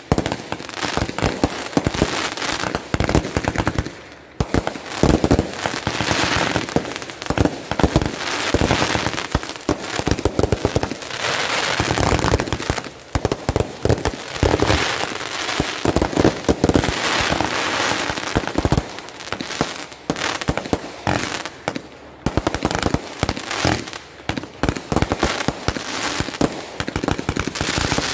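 Fireworks going off in a continuous barrage: many sharp pops and crackling bursts in quick succession as aerial effects are launched and explode.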